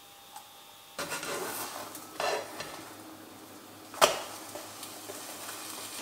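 Protein pancake batter sizzling in a hot frying pan. It starts suddenly about a second in as the batter hits the pan and carries on as a steady hiss, with a sharp knock about four seconds in.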